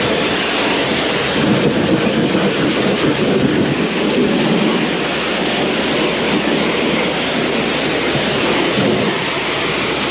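Pressure washer jet spraying dirt off a wheel: a loud, steady rush of water spray.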